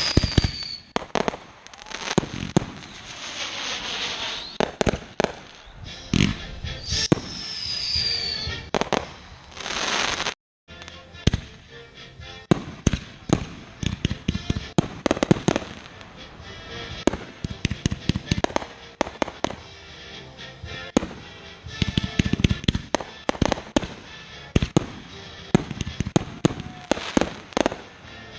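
Fireworks going off: repeated bangs and crackling, with a falling whistle at the start and another about seven seconds in. After a brief dropout just past ten seconds, the display continues as dense rapid crackling and popping.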